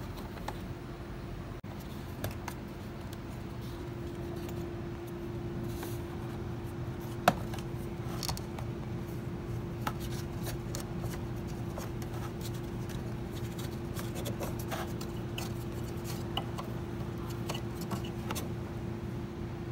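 Scattered small clicks and taps of hand work with tools and parts, over a steady hum that gains a steady tone about four seconds in; one sharp click about seven seconds in.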